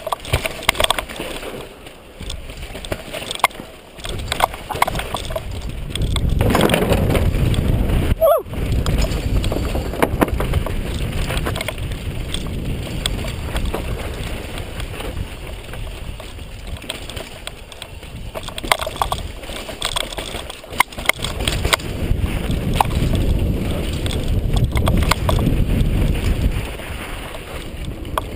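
Wind rushing over a helmet-mounted GoPro microphone during a fast downhill mountain-bike run, swelling and easing with speed. Under it, the bike's tyres crunch over dirt and rock, with frequent sharp rattles and knocks from the bike over bumps.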